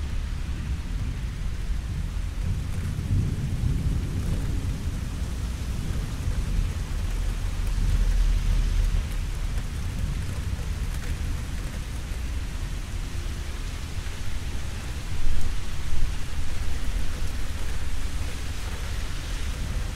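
Steady rain falling, with a low rumble of thunder that swells and fades a few times. Two louder thumps a second apart come about three quarters of the way through.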